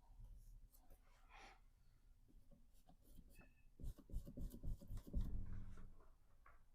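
Brush working oil paint onto a canvas: faint scratchy strokes, then a louder stretch of scrubbing strokes with low bumps from about four to six seconds in.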